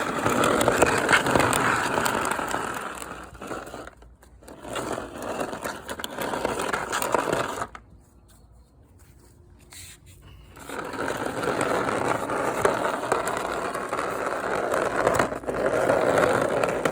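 A rough, continuous scraping noise, the 'disgraceful' scraping sound. It breaks off for about three seconds partway through, then starts again.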